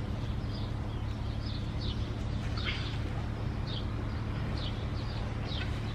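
Small birds chirping in short, high, falling chirps about once a second, over a steady low hum.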